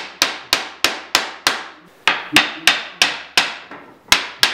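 A small metal-headed hammer tapping on the wood, a sharp ringing tap about three times a second with a short pause about two seconds in.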